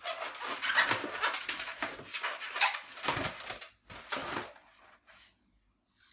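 Inflated latex modelling balloons rubbing and squeaking against each other as they are handled, a busy run of squeaky scrapes that dies away after about four and a half seconds.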